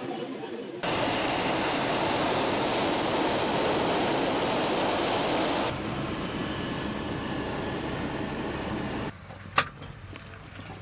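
Steady rushing noise of an AS350 B2 helicopter, cut off and switched abruptly twice. About nine seconds in it drops to a quieter low hum, with one sharp click just after.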